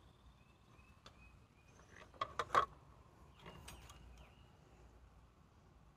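A few light knocks and scrapes of a plant pot and soil being handled while a succulent is potted up: one tap about a second in, a quick cluster about two seconds in, and a rougher scraping patch just after. Faint high chirping carries on in the background.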